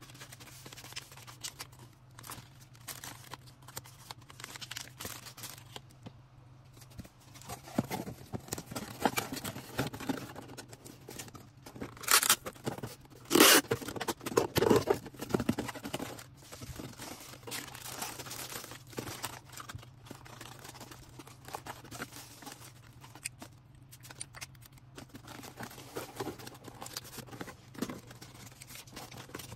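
Hands packing an order: plastic packaging rustling and crinkling, with small items being handled, and a few louder tearing sounds near the middle. A steady low hum runs underneath.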